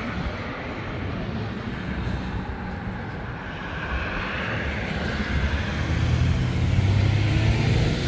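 Road traffic passing: a vehicle's engine and tyre noise, a low rumble that builds and grows louder over the last few seconds.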